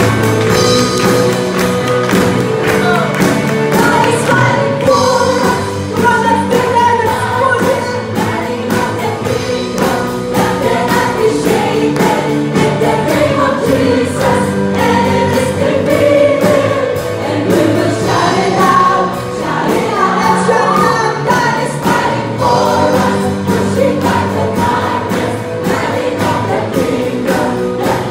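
A worship team of men and women sings a Christian praise song together into microphones, over instrumental backing with a steady beat.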